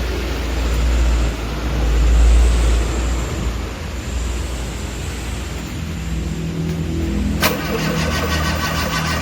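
Suzuki Carry 1.0 engine running with a steady low rumble, its revs rising and falling about a second or two in. About 7.5 s in there is a sharp crack, then a fast, even ticking over the running engine.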